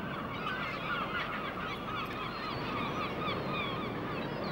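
A flock of birds calling over one another in a steady, dense chorus of many short, quick calls.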